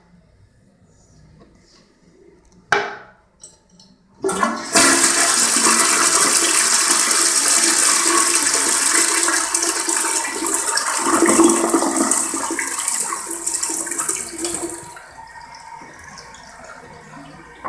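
Crane Galaxy toilet flushing: a sharp knock about three seconds in, then a loud rush of water through the bowl for about ten seconds, dropping to a quieter running-water hiss for the last few seconds.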